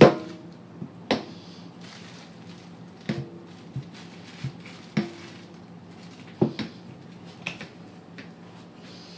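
Handling noise: about ten irregular sharp knocks and clacks, roughly one a second, as a ballistic gel block and the camera are moved about in a plastic trash bag. The loudest knock comes right at the start, and a few leave a brief hollow ring.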